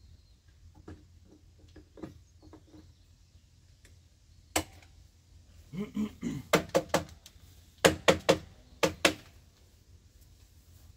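A series of sharp wooden knocks and clacks as a cedar slab and its clamping gear are handled on sawhorses. A few light taps come first, then a loud knock about four and a half seconds in, and clusters of knocks between about six and nine seconds.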